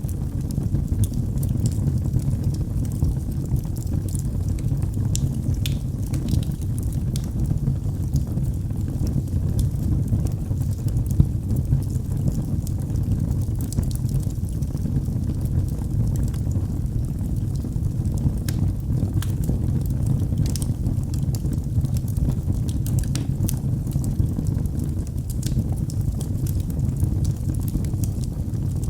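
Wood fire in a fireplace crackling: many small irregular pops and snaps over a steady low rumble.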